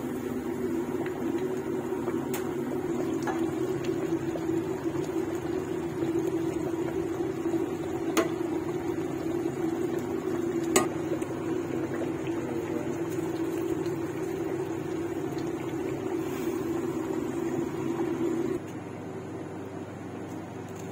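A large steel pot of chicken stew boiling hard, with a steady low rushing hum and a few sharp clinks of a metal spatula against the pot, the loudest about eleven seconds in. The rushing drops away suddenly near the end.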